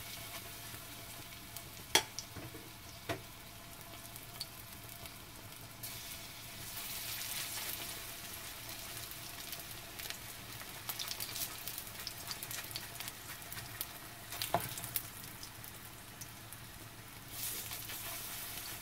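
Lotus-root pancake batter sizzling in oil in a nonstick frying pan as spoonfuls are dropped in, the hiss swelling now and then. A few sharp clicks of the metal spoon against the pan, the loudest about two seconds in and again about three-quarters of the way through.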